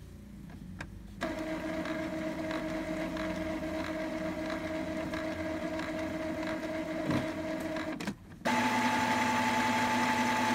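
Epson L3150 inkjet printer's internal motors running during a print-head cleaning cycle: a steady motor whine with faint regular ticks starts about a second in, breaks off briefly near eight seconds, then resumes louder at a different pitch.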